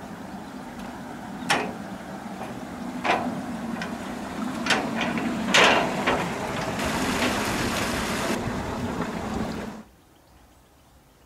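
Footsteps on a metal grating footbridge: several sharp clanks of the grating, roughly one to a second and a half apart, the loudest about halfway through, over a steady rushing noise. Near the end the sound drops suddenly to a faint hush.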